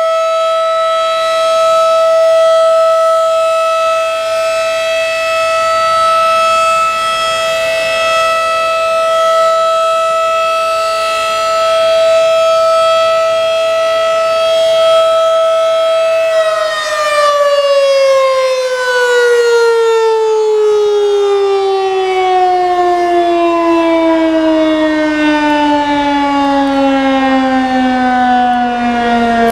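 Federal Signal 2001-DC outdoor warning siren holding a steady, loud tone. About halfway through, its pitch begins falling slowly and steadily as the siren winds down at the end of its test run.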